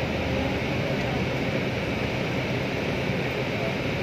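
Steady low rumble and hiss of a vehicle in motion, heard from inside an airport apron bus.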